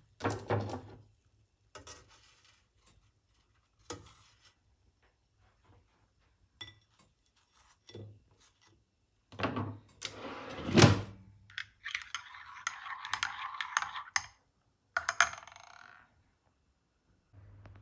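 Scattered clinks and knocks of dishes and kitchenware being handled, with a louder clatter about eleven seconds in, followed by a couple of seconds of scratchy rustling noise.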